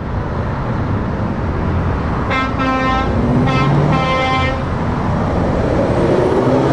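Scania R730's V8 diesel running under load as the truck drives past, and two blasts of its horn, the first about two seconds in and the second, longer, about a second later.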